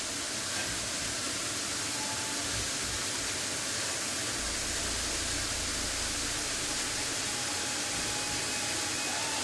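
Steady hiss-like background noise, with a low rumble from about four and a half to eight seconds in.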